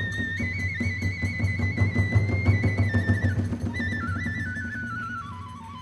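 Kagura hayashi ensemble playing: a high bamboo flute melody over quick drum strokes and small cymbals. In the second half the flute line steps down in pitch and the whole ensemble fades as the piece winds down.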